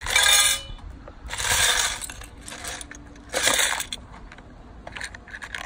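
Plastic toy building bricks clattering and clinking as handfuls are poured and tipped, in three loud bursts with scattered clicks between.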